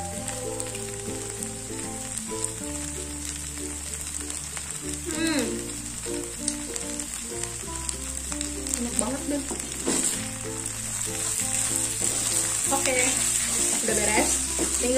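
Fried noodles with shrimp and egg sizzling in a frying pan, louder toward the end as a wooden spatula stirs them. Background music plays.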